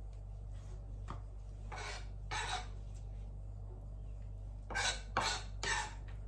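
Kitchen knife scraping across a plastic cutting board, clearing away tomato seeds and pulp: two short scrapes about two seconds in, then three louder ones in quick succession near the end. A steady low hum sits underneath.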